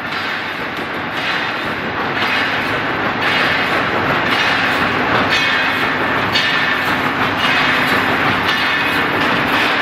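Automatic welded wire mesh machine running, a loud rhythmic mechanical clatter with a stroke about once a second, growing louder over the first few seconds.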